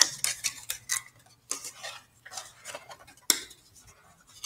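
Google Cardboard VR viewer being unfolded and folded into shape by hand: a run of irregular cardboard scrapes, flaps and taps, busiest in the first two seconds, with a sharper one a little over three seconds in before it dies down.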